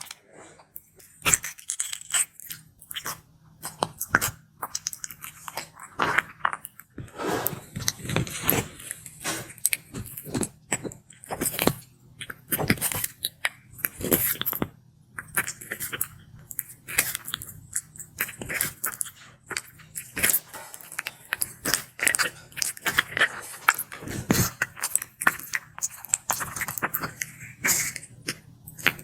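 Sulcata tortoise biting and chewing food close to the microphone: a run of irregular crisp crunches and clicks.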